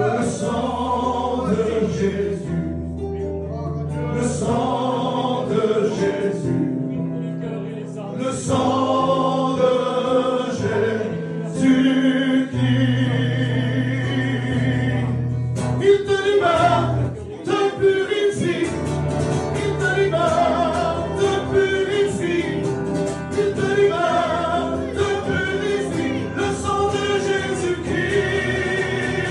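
Men singing a gospel hymn with acoustic guitar accompaniment.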